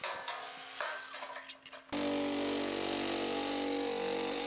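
Electric metal shears working the sheet-steel skin of a car door. A rasping, high-pitched cutting sound with a faint whine comes first. After a brief dip, from about two seconds in, the shears' motor runs with a steady hum.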